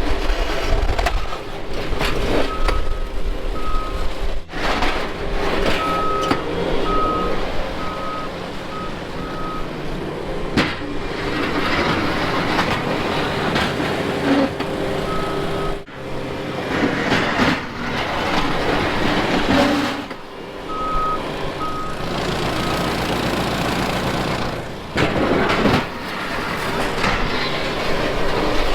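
Heavy snow-removal equipment running, with a backup alarm beeping in several short runs of evenly spaced beeps. The sound breaks off abruptly a few times and picks up again.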